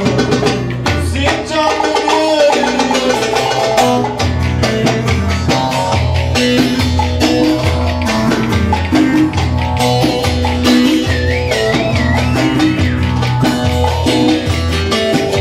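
Lively Ankara-style folk dance music, a plucked string instrument playing over a steady, repeating bass beat with sharp percussive strokes.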